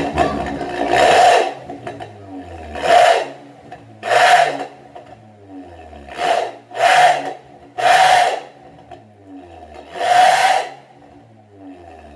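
Honda Mobilio's four-cylinder engine revved in about eight short blips through an open, aftermarket 'suos ngorok' muffler with the stock silencer canister removed. Each blip is a loud exhaust burst that drops back to a low idle between revs.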